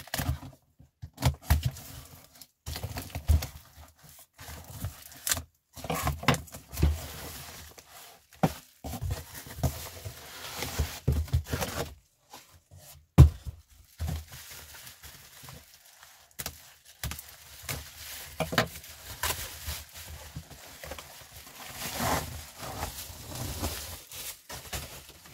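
A cardboard parcel being unpacked by hand: box flaps and packing tape tearing, cardboard and plastic wrapping rustling and crinkling, and knocks as the box is handled, with one sharp loud knock about halfway through.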